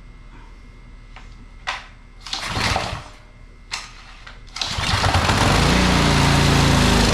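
Small gasoline engine on a pressure washer being pull-started with its recoil cord: a first pull about two and a half seconds in does not catch, and a second pull about four and a half seconds in catches. The engine then runs loudly, slowing near the end, on gasoline poured down into the cylinder.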